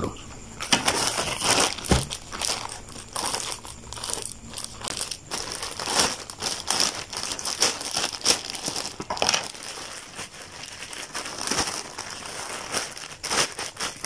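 Plastic courier mailer bag crinkling and rustling in quick, irregular crackles as it is handled and torn open.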